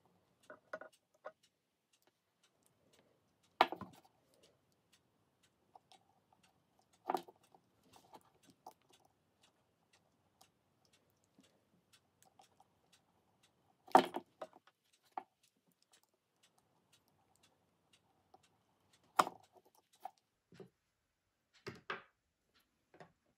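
Scattered light clicks and taps as a small precision screwdriver and tiny metal watch-band screw pins are handled and set down on a table, about ten separate knocks, the loudest a little past halfway.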